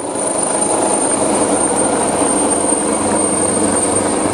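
Helicopter hovering low during a winch rescue, its rotor chop and engine running steadily with a thin high whine over them.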